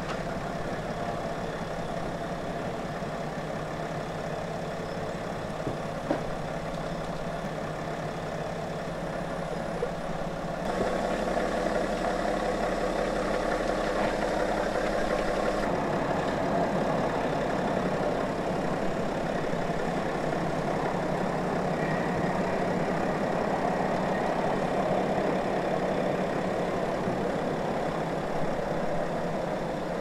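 BMW 7 Series engine running at idle as the car creeps forward at walking pace under Remote Control Parking, with no one inside. A steady hum that steps up louder about a third of the way in and then holds steady.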